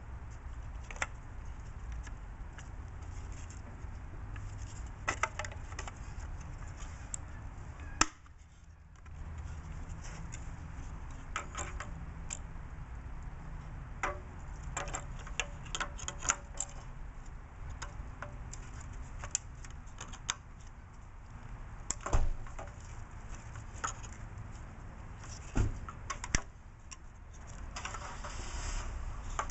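Hard plastic radiator parts clicking and knocking at irregular moments as the side bracket is handled and pressed onto the new radiator's plastic end tank, over a low steady rumble.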